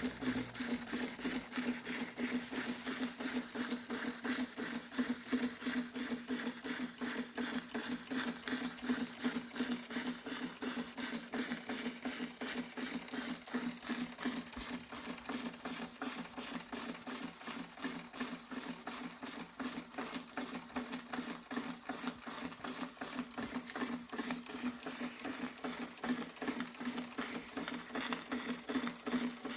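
Märklin 4112/11 live-steam model engine, spirit-fired, running steadily at speed: a rapid, even stream of exhaust beats and light mechanical clatter over a steady hum.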